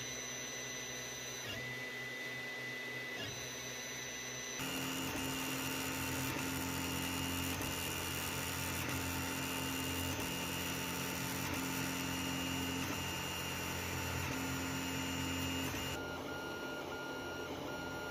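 Creality CR-10S 3D printer running a print: its stepper motors whine in steady tones that change pitch every second or two as the moves change, over a steady fan hum. The sound is louder through the middle stretch.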